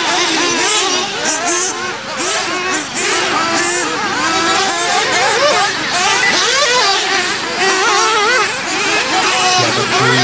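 Several 1/8-scale off-road RC buggies racing, their motors revving up and down in overlapping rising and falling whines.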